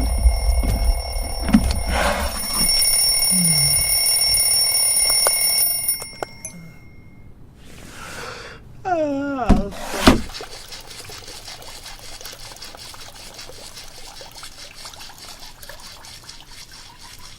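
Cartoon alarm clock ringing loudly with a steady high-pitched ring for about six seconds, then stopping suddenly. About three seconds later a wobbling, sliding cartoon sound effect ends in a sharp bang, followed by a faint steady hiss.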